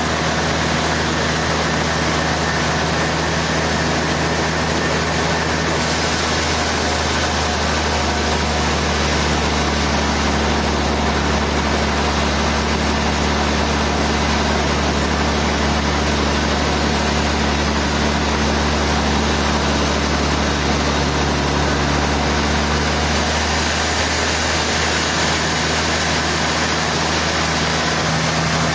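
Sawmill running steadily: an even engine hum under a dense, loud noise that hardly changes throughout.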